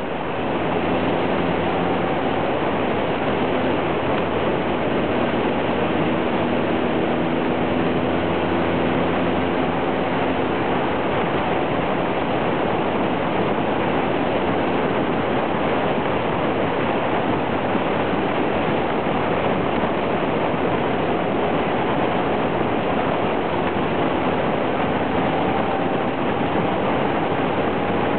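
Steady rush of wind and motorcycle running noise picked up by a camera mounted on the bike's fairing while riding at speed. Faint steady engine tones run under the wind.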